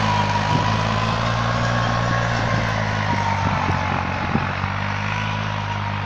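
Tractor engine running steadily in the distance, a constant low drone with a faint higher whine above it.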